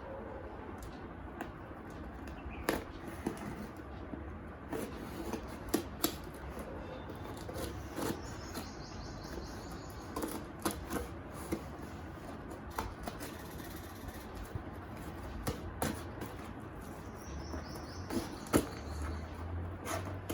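Irregular small clicks and taps from hands handling packaging and tiny miniature pieces, with a couple of brief rustles.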